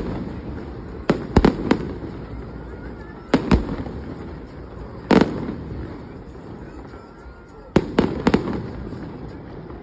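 Fireworks display: shells bursting in sharp bangs, in groups of one to three about every two to three seconds, over a steady background murmur.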